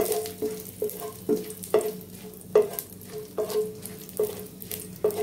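Whole spices sizzling in hot oil in a nonstick kadai, stirred with a slotted spatula that knocks against the pan about twice a second, each knock with a short ring. This is the tempering of cumin seeds and whole garam masala: cardamom, cloves and cinnamon.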